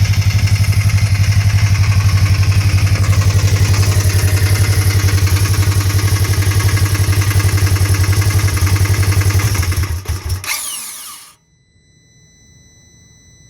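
Polaris RZR XP 1000 parallel-twin engine idling with an even pulse, then faltering and dying out about ten seconds in. This stalling at idle is the fault blamed on a bad TMAP sensor connector.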